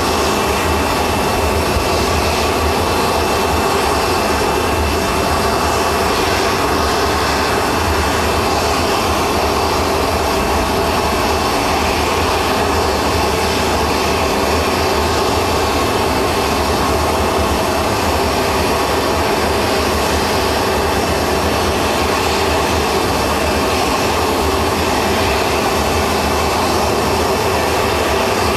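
Jet turbine running steadily with a loud, even roar and whine. A thin high tone fades out after the first few seconds.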